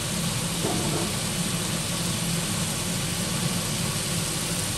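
Duck pieces with lemongrass sizzling steadily in a frying pan on an induction cooktop, over a steady low hum from the running cooktop.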